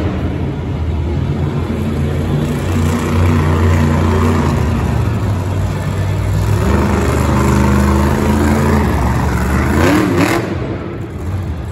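Monster truck's supercharged V8 engine revving hard and surging as the throttle is worked to hold the truck up on two wheels, easing off near the end.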